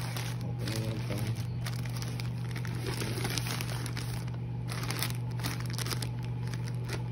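Plastic mailer bag and plastic wrapping crinkling and rustling in irregular spurts as they are handled and pulled open, over a steady low hum.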